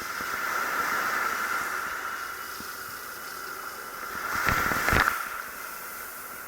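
Sea water sloshing and washing around an action camera in its waterproof housing, heard muffled through the housing as a steady hiss, with a louder surge of water, like a wave hitting it, about four and a half seconds in.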